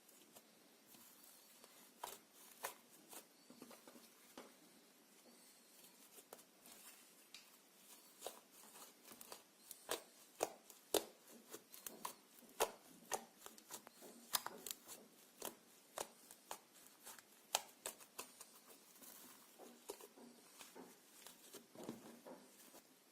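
Slime being worked by hand or mixed, giving quiet, irregular sticky clicks and crackles that come thicker in the middle and thin out near the end.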